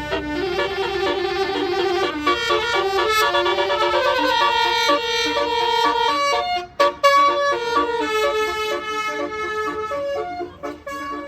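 Bus telolet horn, a Basuri multi-tone musical air horn, playing a tune as a string of held notes stepping up and down in pitch, with a brief break a little over six seconds in.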